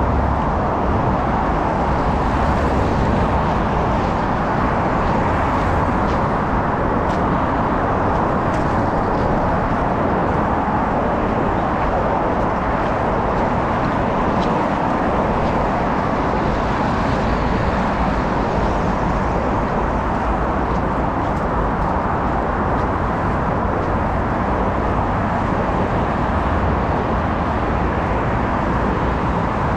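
Heavy road traffic on a wide multi-lane city avenue: a steady, unbroken wash of tyre and engine noise from passing cars.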